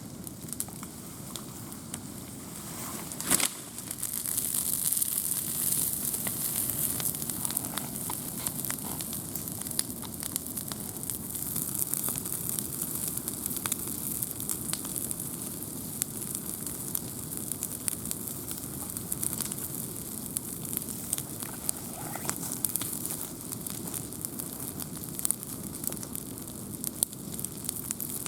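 Wood campfire burning: steady crackling with scattered pops, one loud snap a few seconds in, followed by a few seconds of hissing.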